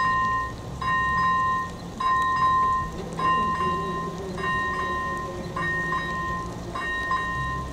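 Level-crossing warning sounder (AŽD ZV01 electronic bell) ringing about once a second, each stroke a bright two-note chime. From about three seconds in a low steady hum joins it while the crossing barriers swing down.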